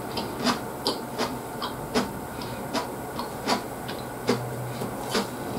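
A person chewing a mouthful of mackerel sushi: wet mouth smacks and clicks recurring about once or twice a second over a steady low hum.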